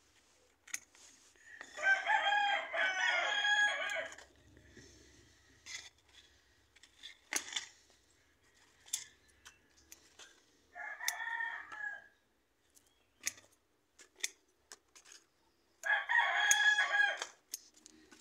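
A rooster crowing twice, each crow about two seconds long, with a shorter crow or call near the middle. Scattered sharp clicks and rustles come from close by between the crows.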